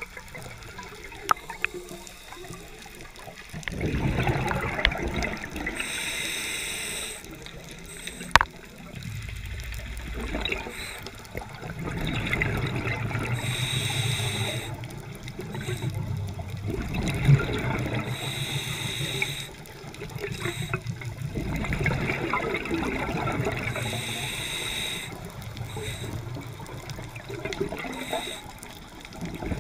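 Scuba diver breathing through a regulator underwater: bubbling exhalations alternate with the hiss of inhalations, about four breaths in all.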